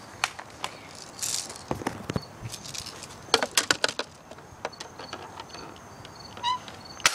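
A scatter of clicks, knocks and rattles from handling, with a quick run of loud sharp clicks about three and a half seconds in and a short squeak near the end.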